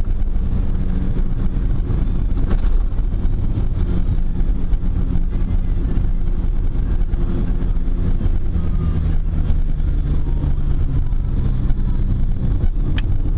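Car engine running and tyres rumbling on a gravel road, heard from inside the cabin while driving; the engine note drops a little past the middle and rises again near the end. Two sharp clicks, one early and one near the end.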